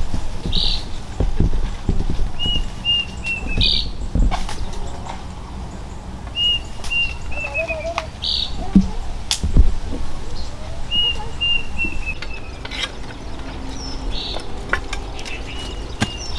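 A songbird repeats a short song of five or six quick, slightly falling notes about every four to five seconds, with a brief higher call between songs. Scattered sharp knocks and rustling run underneath; the loudest knock comes about nine and a half seconds in.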